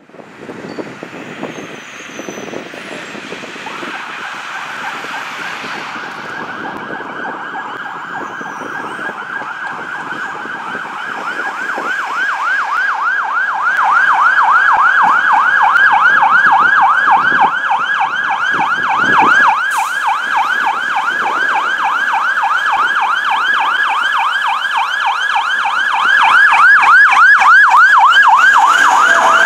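Fire truck siren in a fast, repeating yelp. It grows louder as the tractor-drawn aerial ladder truck approaches and is loudest as it passes close by near the end.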